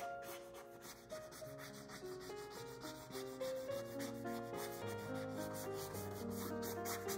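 Background music: a slow melody of held notes over a stepping bass line, with a quick, even beat underneath.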